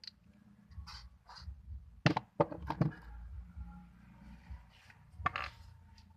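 Glue slime being squeezed and kneaded in bare hands, with sharp wet clicks and pops: a loud cluster about two seconds in and another near the end.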